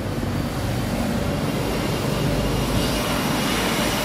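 Steady machine hum with a rush of air, a fan or blower running.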